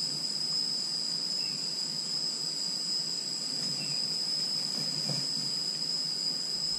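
Steady, high-pitched chorus of insects, one unbroken drone.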